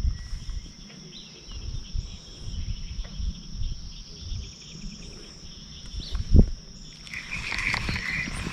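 Insects droning in one steady high note, with wind rumbling on the microphone. There is one sharp thump about six seconds in, and a rattling, clicking sound starts about a second before the end.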